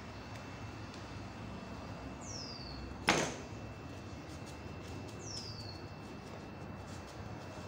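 A single sharp knock about three seconds in, over steady background noise, with two short high chirps that fall in pitch, one before the knock and one after it.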